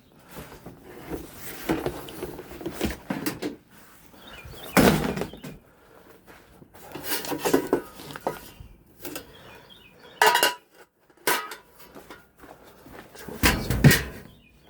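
Clatter and knocks of stored items being handled and shifted, irregular, with several louder bangs.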